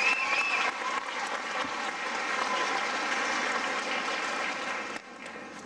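Audience applauding, with a short high whoop at the start; the applause cuts off abruptly about five seconds in.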